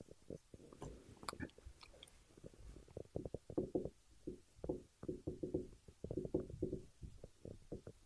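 Dry-erase marker squeaking and scraping on a whiteboard, in many short, faint strokes as letters are written, busiest from about three seconds in.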